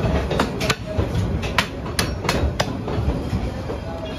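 Butchers' cleavers chopping beef on wooden log blocks, about six sharp knocks at an uneven pace. Under them runs the low rumble of a passing train.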